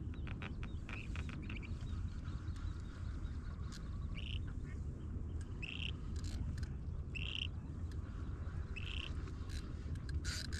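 A bird gives a short call four times, about once every second and a half, after a few quick chirps near the start, over a steady low rumble.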